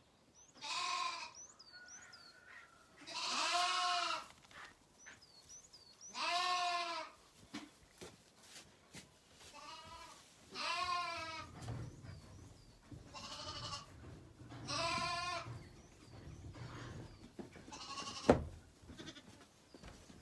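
Zwartbles lambs bleating again and again, about seven wavering calls under a second each, with faint high chirps between them. A single sharp knock near the end is the loudest sound.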